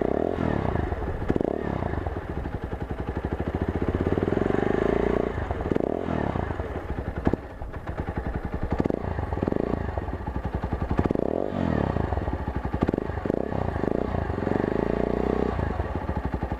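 Sym Wolf 125's single-cylinder four-stroke engine running through a LeoVince SBK exhaust with the dB killer removed, a loud open exhaust note. It is revved up twice, once a few seconds in and once near the end.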